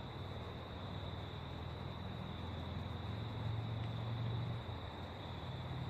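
Crickets trilling steadily as one unbroken high tone, over the low, steady rush of the creek.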